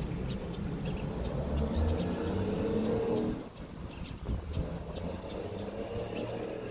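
A motor vehicle's engine running, a steady low drone that drops off about three and a half seconds in and then continues more faintly.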